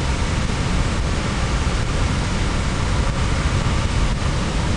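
Steady noise inside a car driving fast on a wet, slushy highway: tyre and road rumble.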